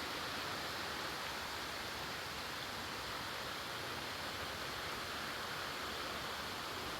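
Creek water running, a steady even rush with no breaks.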